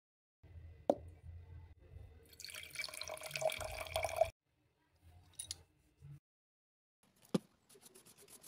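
Water poured from a glass bottle into a glass jar, filling it with a ringing tone for about two seconds before stopping abruptly. A click comes before it. Near the end there is a sharp knock, then a quick run of strokes from a wide flat brush on paper.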